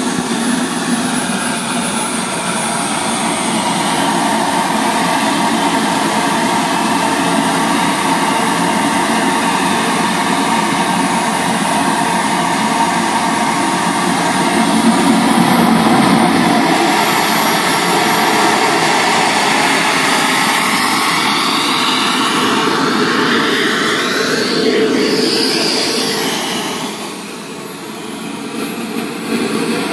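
Small turbine engine of a radio-controlled F-100 Super Sabre model jet running, a steady rush with a high whine. Late on, the whine sweeps up and down in pitch and the sound dips briefly as the jet taxis off.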